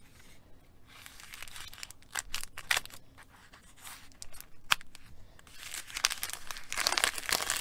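Paper bag crinkling and rustling as it is handled and cut open with scissors, with scattered sharp clicks. The rustling grows louder and busier in the last two seconds.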